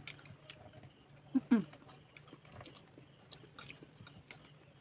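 Close-up chewing and wet mouth sounds of people eating, with a few light clicks. About one and a half seconds in, a short vocal sound falling in pitch is the loudest thing.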